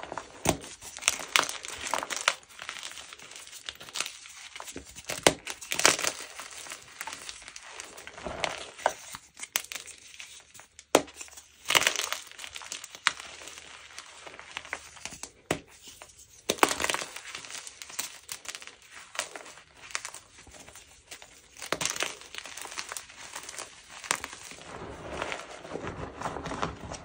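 Gym chalk mixed with cornstarch being crushed, in irregular bursts of dry crunching and crackling with a few sharp snaps.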